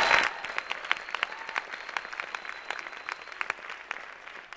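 Audience applause dying away. The full applause drops off just after the start, leaving scattered single claps that thin out and fade.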